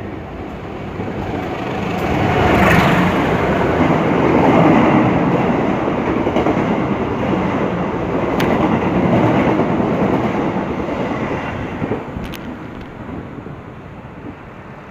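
A train passing close by on the rails, a dense rumble that swells over the first few seconds, stays loud for several seconds, then fades away near the end.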